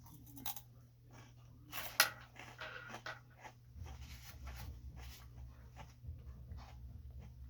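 Close-up mouth sounds of eating: irregular crunching and chewing, with one sharp loud crunch or click about two seconds in.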